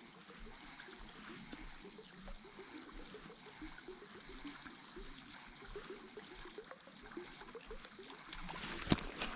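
Faint trickling of moving water, with a single sharp click about nine seconds in.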